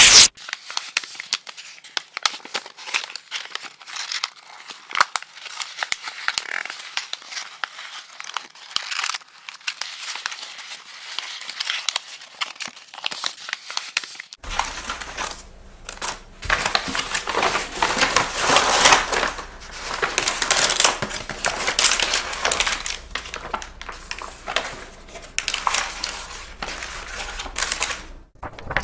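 Paper being crumpled and crinkled by hand: a dense, irregular crackling that comes and goes in handfuls. About halfway through, a second recording takes over, with busier, louder crinkling over a steady low hum.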